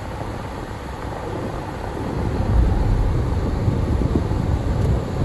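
Car driving, heard from inside the cabin: a steady low rumble of engine and tyre noise that grows louder about two seconds in.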